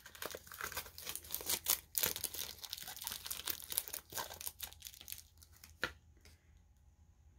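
Packaging being pulled off a potted plant by hand: a dense run of crinkling and tearing for about four and a half seconds, then a few scattered crackles.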